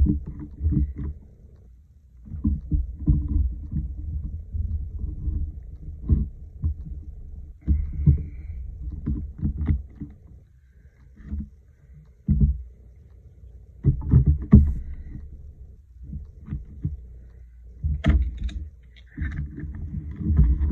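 Rubber stamps being tapped on an ink pad and pressed onto a card on a tabletop: a run of irregular knocks and thumps over a dull low rumble.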